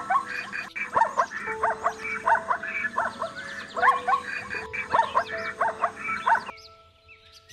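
Okapi calling: short, sharp calls repeated about twice a second, over soft background music with held notes. The calls stop about six and a half seconds in.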